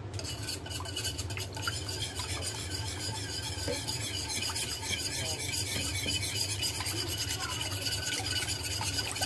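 Wire whisk beating a liquid chocolate milk and egg custard in a stainless steel saucepan, its wires scraping and clinking against the pan in quick, steady strokes.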